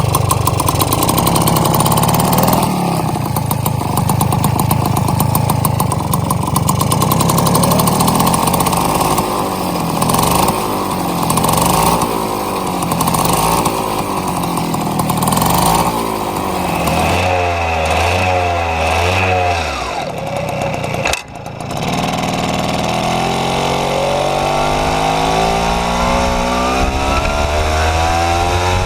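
Puch Maxi moped's 50 cc two-stroke single-cylinder engine through a 28 mm exhaust, revved up and down again and again. About 21 seconds in the note drops out briefly, then the revs climb steadily to the end.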